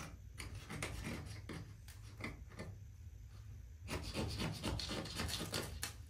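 Small dry sticks and kindling scraping and rubbing together as a little wood fire that has gone out is reworked, with scattered sharp clicks and a denser burst of rustling about four seconds in.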